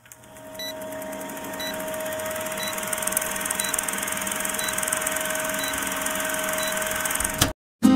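Vintage film-countdown sound effect: a film projector running with a rapid clatter and a steady hum, with a short beep about once a second. It cuts off suddenly near the end.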